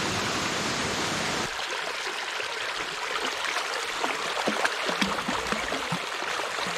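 Steady rush of a forest creek and waterfall. About a second and a half in it changes to a closer, thinner creek sound without the deep rumble, with small splashes and gurgles as a dog wades in the shallow water.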